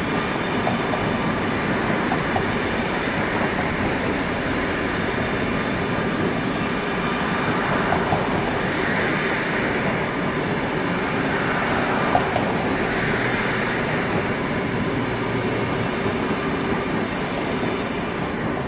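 CRH1E high-speed electric multiple unit running past: a steady rush of wheel and rail noise that swells and eases slowly, with a couple of light clicks from the wheels.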